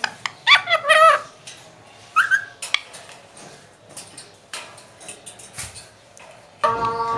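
Indian ringneck parakeet vocalizing: short warbling, pitched calls about half a second in and again around two seconds in, with scattered clicks between. A steady held tone starts near the end.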